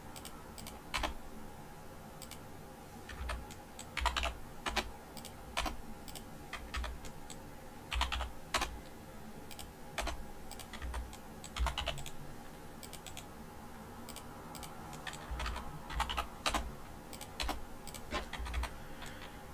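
Sparse, irregular clicks and taps of a computer keyboard and mouse, separated by pauses of a second or more, over a faint steady hum.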